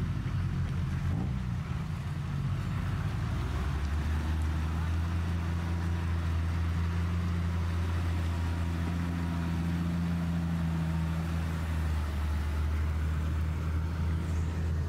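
Lifted Toyota Land Cruiser's engine working under load at steady revs as the truck crawls through deep mud on oversized mud tyres, a steady low drone that settles in about three seconds in.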